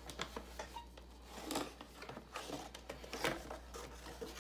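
Cardboard packaging being handled: light rustling and scraping of the box and insert, with scattered small clicks and taps, a little louder about a second and a half in and again about three seconds in.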